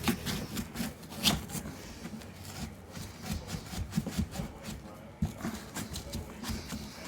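A dishwasher door being scrubbed by hand: a run of short, irregular rubbing strokes with a few sharper scrapes and clicks.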